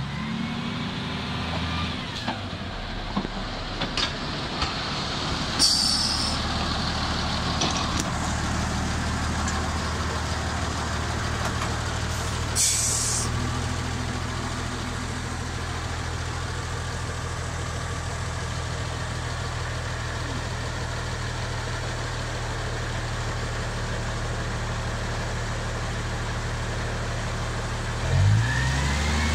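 Diesel engine of an Mk48-class narrow-gauge locomotive running steadily as the locomotive moves slowly through the points, with a few knocks in the first few seconds and two short air hisses, about six and thirteen seconds in, typical of the air brakes. Near the end the engine revs up briefly.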